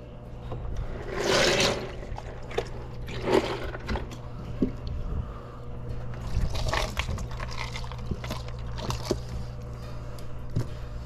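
Speckled trout sloshing and shifting in the water of an ice chest as hands dig through them and pull fish out, in several short splashy bursts, the loudest about a second in. A steady low hum runs underneath.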